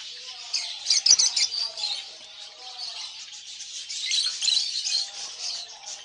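Many caged aviary birds chirping together in a dense, high chatter, busiest about a second in and again around four to five seconds.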